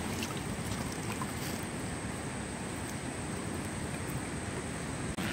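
Steady wash of river water and wind on the microphone, with faint splashing as a trammel net is hauled in by hand through the water.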